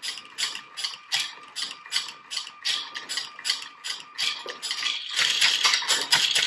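Lego Mindstorms Robot Inventor Charlie robot drumming: its motor-driven plastic arms tap out a steady beat of about three strikes a second over a faint steady tone. The tapping grows denser and louder about five seconds in.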